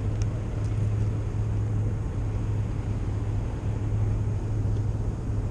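A vehicle's engine running steadily: a constant low hum with a noisy rush over it.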